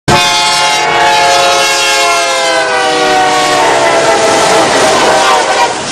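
BNSF diesel freight locomotive's air horn sounding one long chord at a road crossing, its pitch falling as the locomotive passes, over the noise of the moving train. The horn stops near the end.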